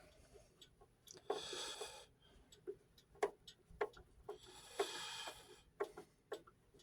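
Screwdriver backing screws out of a clock case: two short scraping turns about three seconds apart, with scattered light clicks between.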